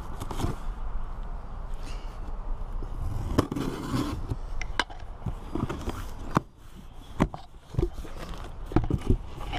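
Scissors slitting the packing tape on a cardboard box, then the cardboard flaps being pulled open, with scraping and a series of sharp, irregular crackles and snaps of cardboard and tape.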